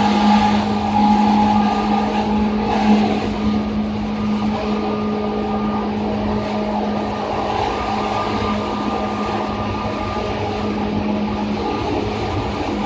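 Interior running sound of a Seibu 2000-series electric commuter train, heard from inside motor car Moha 2375 at speed: a steady hum from the traction equipment with a constant low tone and fainter higher tones, over the rumble of wheels on rail. It is a little louder in the first three seconds, then evens out.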